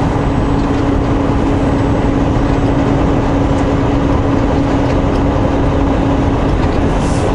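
Steady drone of a loaded semi truck running at road speed on wet pavement, heard inside the cab: diesel engine and tyre noise with a constant low hum.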